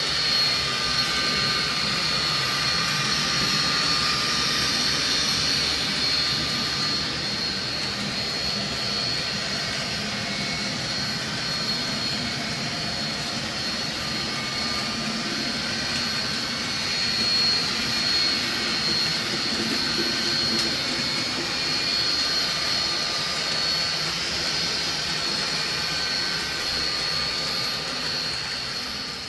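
H0 scale model train running: a steady high motor whine over a low rumble of wheels on track, fading out near the end.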